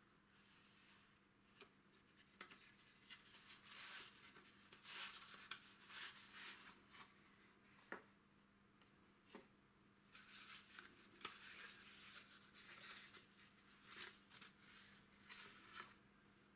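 Old cardboard valve box being handled and opened, with faint scraping and rustling of the card in clusters and a few light taps as the glass valve is slid out.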